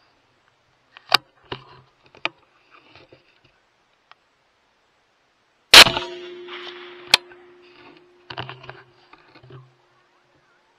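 A single rifle shot about six seconds in, loud, with a trailing echo; a sharp click follows a little over a second later, and a few quieter clicks come before the shot.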